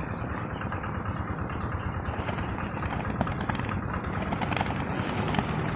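Pigeon wings flapping over a steady low rumble, with a few short high chirps in the first two seconds.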